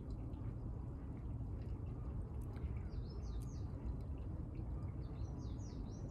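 Outdoor ambience with a steady low rumble. About halfway through a small bird starts singing a run of quick falling chirps, a few a second, and there are a few faint clicks.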